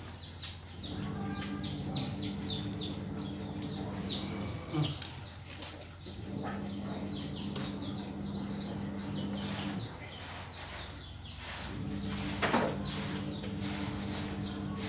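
Small birds chirping fast and high, many short falling notes a second, over a low hum that switches on and off three times.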